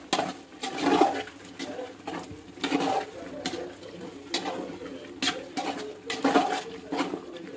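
Metal spoon stirring a thick, wet chicken masala in a large metal pot: wet churning with irregular clinks and scrapes of the spoon against the pot, roughly once a second.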